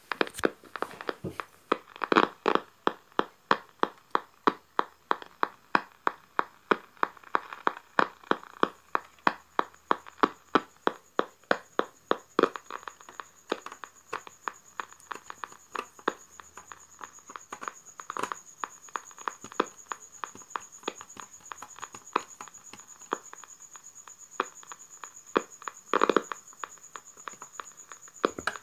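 Clicks or pops from an opened transistor radio's speaker, coming regularly at about three a second. About halfway the clicks turn fainter and irregular, and a faint steady high whistle comes in.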